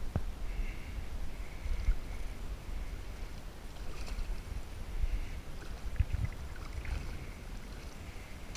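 A small sturgeon thrashing at the surface beside a landing net, splashing a few times, over a steady low rumble of wind on the microphone.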